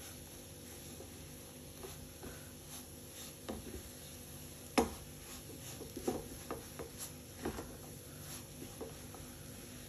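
Spatula stirring and pressing a thick semolina-and-cream ladoo mixture in a nonstick frying pan: soft scrapes and scattered taps against the pan, the sharpest tap about five seconds in.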